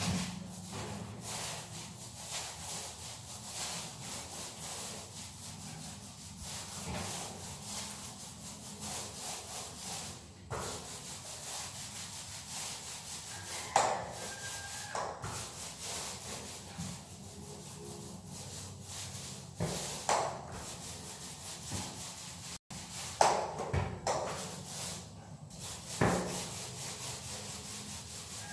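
Paint roller rolling over a plastered wall in repeated strokes, a steady rubbing swish, with a few louder knocks along the way.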